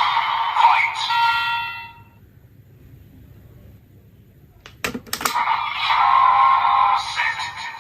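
Kamen Rider Geats toy belt with its MK3 buckle playing electronic sound effects through its small speaker: one effect rings out and fades in the first two seconds, a few sharp plastic clicks come about five seconds in as a buckle is worked, and a new sound effect with music starts right after.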